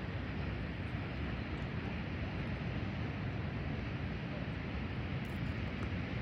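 Steady, unbroken rumbling background noise, heaviest in the low end with a hiss above, with no distinct events.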